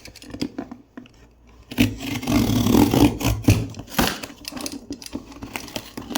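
A blade cutting open a cardboard shipping box, scraping through tape and cardboard. The scraping is loudest for about two seconds in the middle, with small clicks and knocks of handling before and after.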